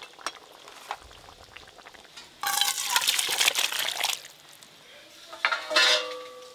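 Thick fish curry being tipped from a metal cooking pot into a metal bowl: a wet, sloshing scrape for about two seconds. Near the end comes a short metal clank that rings on briefly.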